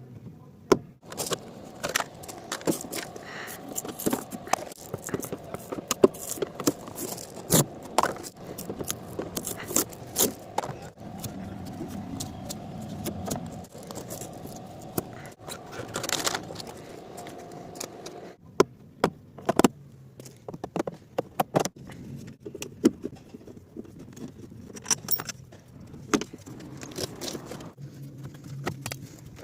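A car giving off a run of irregular sharp cracks and clicks, like joints cracking, over a steady whine that stops about two-thirds of the way through.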